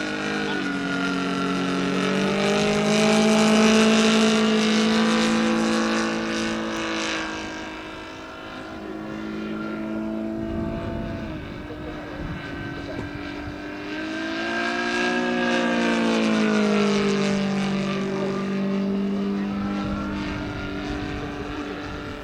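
Saito FG-90R3 four-stroke radial engine of a large RC biplane in flight, its propeller drone swelling and fading twice as the plane passes near, the pitch bending up and down with each pass.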